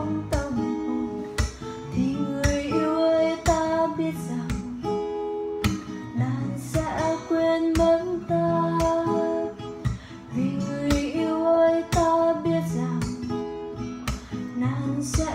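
Steel-string acoustic guitar strummed in a regular rhythm, with a woman singing a slow melody over it.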